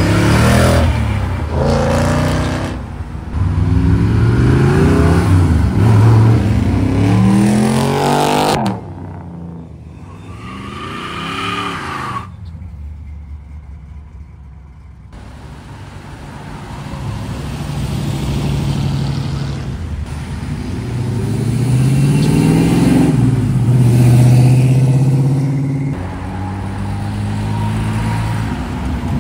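Show cars, among them a late-model Ford Mustang, a first-generation Chevrolet Camaro and an Austin-Healey roadster, drive off one after another, their engines revving up as each accelerates past. The loudest revving, rising in pitch, is in the first eight seconds and cuts off abruptly. A quieter pass follows, then another strong acceleration a little after twenty seconds.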